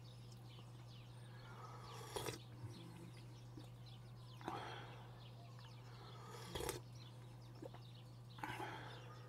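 A steady low hum with four short, faint noises spread about two seconds apart, and faint chirping in the background.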